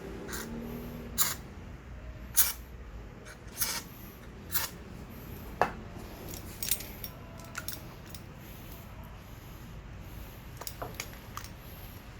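Sharp metallic clicks and clinks from brake pads, their spring clip and hand tools being handled, roughly one a second for the first several seconds, then a few fainter ones near the end.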